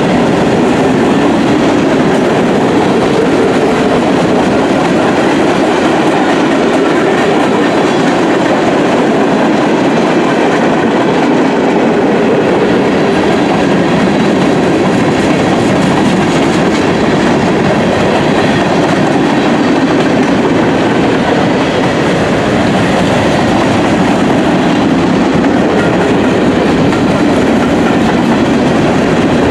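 Loud, steady noise of a freight train's cars rolling past close by: a long string of covered hoppers, tank cars and boxcars, their steel wheels running on the rails.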